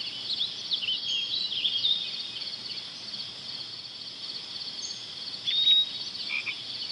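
Steady, high-pitched chorus of insects, with short chirping animal calls over it and one louder call about five and a half seconds in.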